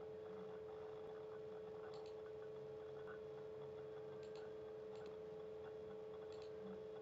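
Faint steady electrical hum of a recording setup, with a few soft, scattered clicks of a computer mouse.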